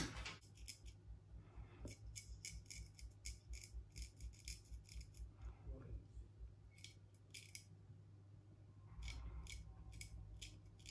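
Razor blade scraping gelled stubble on the skin in short, quick strokes, about three a second, in three runs: a long run early, a few strokes about seven seconds in, and another run near the end. Faint.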